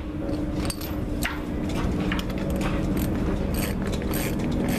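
Socket ratchet clicking in short runs, busiest near the end, as the nut on a homemade puller's threaded rod is turned to press the old bearing out of a boat's strut. A steady low hum runs underneath.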